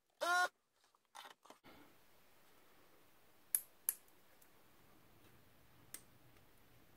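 A ZD-985 vacuum desoldering gun's pump firing twice in short buzzes about a second apart, sucking the molten solder off the crystal's two pins. A few light clicks follow as the loosened crystal is worked free of the board.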